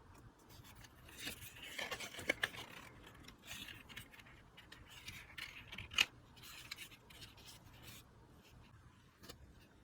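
Quiet handling of heavy cardstock pieces: soft scattered scrapes, rustles and small taps, with one sharper click about six seconds in.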